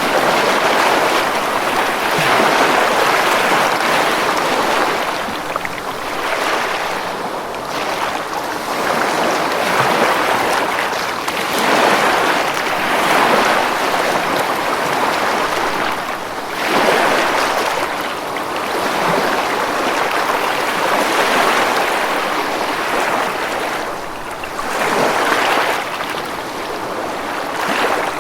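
Ocean waves breaking and washing on a beach, a continuous rush of surf that swells and recedes every few seconds.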